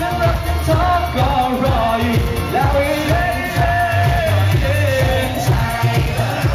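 Male singer singing into a handheld microphone over a pop backing track with a heavy bass beat, played loud through a PA system.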